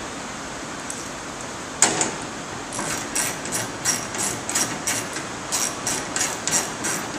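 Socket ratchet clicking in quick, uneven strokes as M8 bolts are tightened into a TV's back. A sharp metal knock about two seconds in comes just before the clicking starts.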